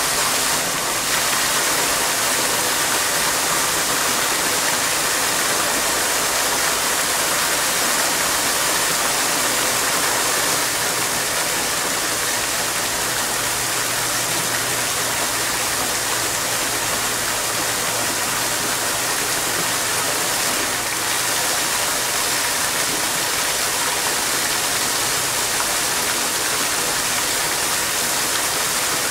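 Fountain water jets and a falling curtain of water splashing steadily into a shallow basin, a dense even hiss of splashing water.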